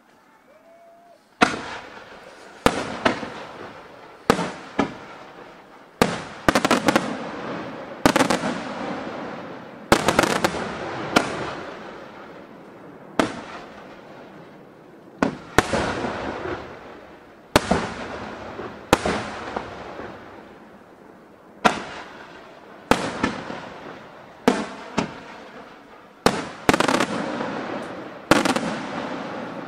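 Aerial firework shells bursting one after another, a sharp bang every one to two seconds, each trailing off over a second or so. The first bang comes about a second and a half in.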